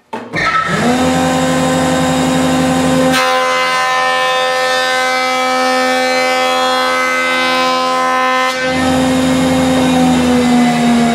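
DJ-30 jointer starting and spinning up to a steady whine. From about three seconds in, the cutterhead planes the face of a rough board for about five seconds, a louder, rougher cutting noise. Then it runs free again and begins to slow, falling in pitch, near the end.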